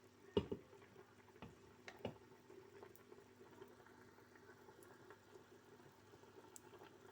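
Near silence: faint room tone with a steady low hum, broken by a sharp knock about half a second in and a softer one about two seconds in.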